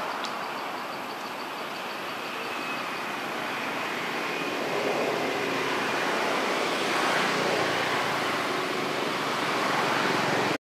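Steady, even outdoor background din with no distinct events, and no monkey calls heard. A faint, rapid ticking, about five a second, runs through the first three seconds and then fades.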